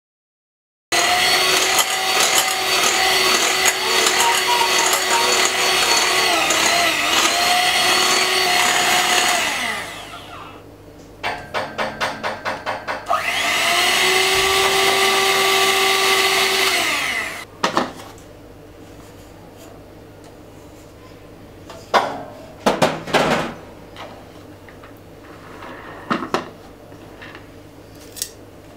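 Electric hand mixer whipping white cake frosting in a glass bowl. It runs steadily at high speed for several seconds and then stops. It is pulsed in about six quick bursts, then runs again with its pitch rising to a steady whine before switching off. A few sharp knocks of utensils on the counter follow.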